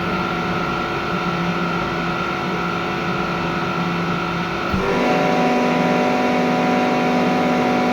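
Diamond DSC-20 20 HP rotary screw air compressor running with a steady mechanical hum and whine. A little past halfway there is a brief knock, and the hum shifts to a slightly louder, differently pitched drone.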